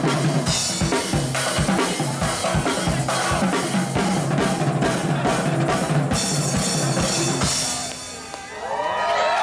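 Street band's drum kit and snare drum playing a fast, steady beat with bass drum and rimshots, which stops about eight seconds in; voices start up just before the end.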